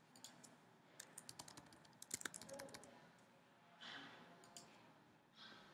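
Faint clicking of computer keyboard keys as numbers are typed into a form field, a quick run of keystrokes between about one and two and a half seconds in.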